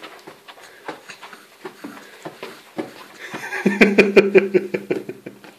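Soft knocks and rustling of a baby kicking and waving her arms on a padded changing mat, with a cluster of sharper knocks about four seconds in. Over the second half a steady, held voice sound lasts about two seconds.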